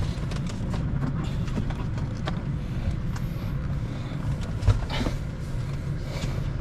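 Low steady rumble inside a parked car's cabin, with scattered light clicks and one sharp thump about two-thirds of the way through.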